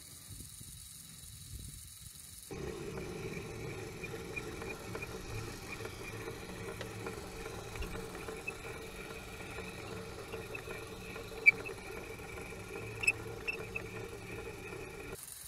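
Steady whine of a small LEGO XL electric motor and its gears driving the crane's winch as it pays out line. A couple of sharp clicks come near the end.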